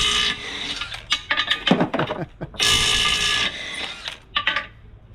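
Snap-on 14.4-volt cordless impact wrench hammering on a wheel's lug nuts in short bursts, one cutting off just after the start and another lasting about a second near the middle, with metallic knocks and clanks between the bursts.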